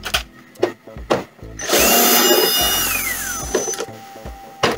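Cordless drill-driver backing a screw out of a printer's plastic panel: a few clicks, then the motor spins for about a second and winds down in a falling whine.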